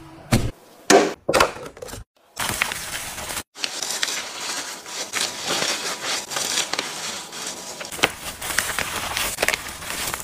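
A few short knocks and rustles in the first two seconds, then a long run of crinkling and rustling plastic as a clear vacuum-sealer bag is handled and a raw steak is slid into it.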